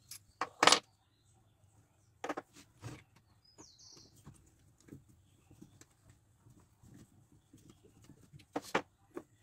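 Steel parts of a home-made engraver's vise clinking and knocking as they are handled and a jaw screw is turned with a small metal tool. Several sharp metal clicks, the loudest about half a second in and two more near the end, with faint scraping between.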